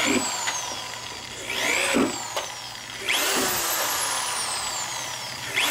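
Power drill with a larger bit boring through a plastic fender, run in several trigger pulls. Each time the motor spins up sharply, then its pitch sags slowly as the bit bites and cuts. The longest run comes about halfway through, and another starts near the end.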